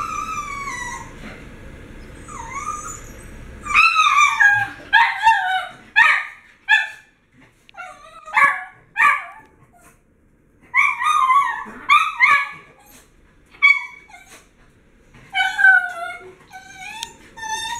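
Miniature schnauzers whining and yipping in excited anticipation of their food, in bouts of short high-pitched calls that slide down in pitch, with brief pauses between bouts.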